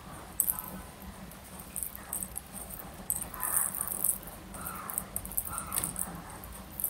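Eating sounds from a mouthful of khichuri: irregular wet chewing and lip smacks, with fingers squeezing and scraping the rice on a steel plate.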